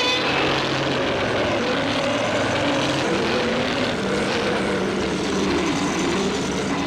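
Godzilla film sound effect: a loud, steady roaring noise with a wavering tone beneath it, starting abruptly and running about seven seconds.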